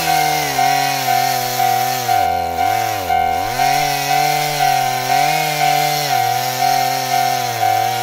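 Japanese level crossing warning bell ringing a steady electronic tone about twice a second, over a chainsaw sound effect whose buzzing pitch sags twice and then recovers.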